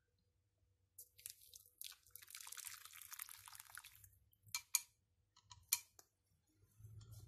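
Hot water poured into a ceramic bowl of dry soup ingredients for about three seconds, then a few sharp clicks of wooden chopsticks against the bowl as the soup is stirred.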